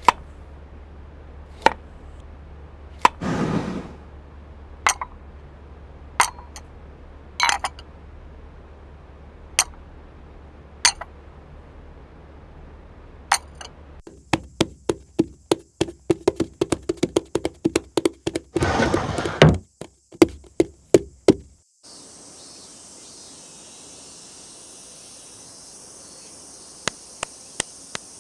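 Hand-made foley sound effects: single sharp knocks and clinks a second or two apart, with a couple of short rustling swishes among them. About halfway through comes a quick run of many knocks with a louder swish in the middle. A steady high hiss takes over some six seconds before the end.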